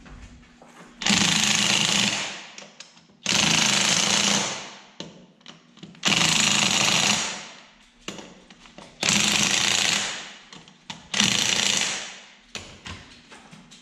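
Cordless impact wrench hammering lug nuts tight on an ATV wheel in five bursts, each starting suddenly, running about a second and then tapering off.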